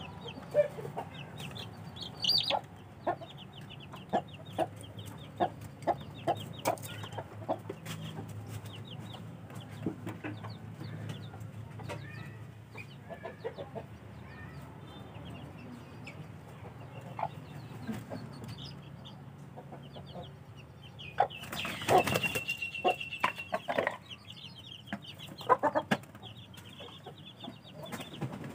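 Young chicks peeping: many short high cheeps, with scattered sharp taps and a low steady hum underneath. About three quarters of the way through comes a louder, noisier flurry with one longer held high note.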